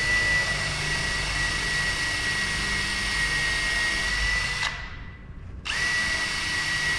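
Cordless drill boring a pilot hole down into wood, its motor running with a steady high whine. It stops after about five seconds, then starts again about a second later.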